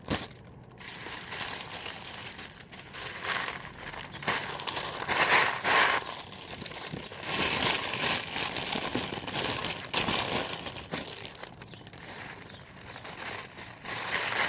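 Packaging crinkling and rustling in bursts as a jersey is unwrapped and handled, loudest about five to six seconds in.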